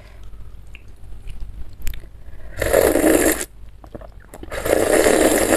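Spoon and fork stirring sambal through a bowl of bakso in broth, in two loud strokes of about a second each, the first about two and a half seconds in.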